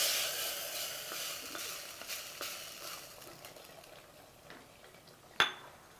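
Hot ghee poured into rice and water in a pressure cooker, sizzling and dying away over about three seconds, while a wooden spatula stirs the rice. A single sharp clink comes about five and a half seconds in.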